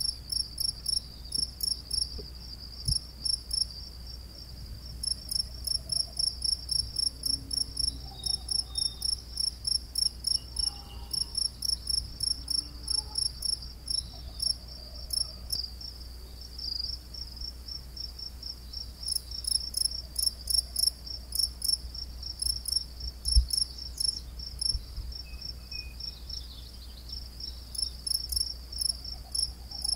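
A cricket chirping at dusk: short high-pitched chirps at about three a second, stopping for a few seconds now and then before starting again, over a faint low rumble.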